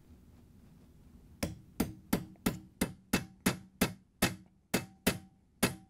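Small hammer tapping a punch to drive a new groove pin into a KitchenAid stand mixer's planetary shaft: about a dozen light, evenly spaced taps, roughly three a second, starting about a second and a half in.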